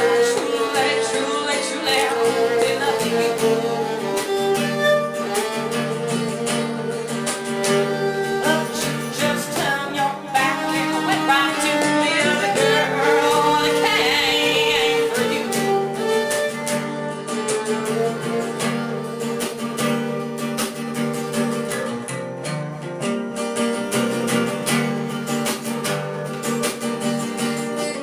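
A song in which a woman sings over acoustic guitar and fiddle.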